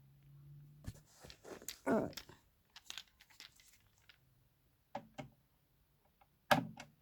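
Scattered clicks, knocks and a scrape from a subwoofer being taken apart by hand, with a sharp knock near the end.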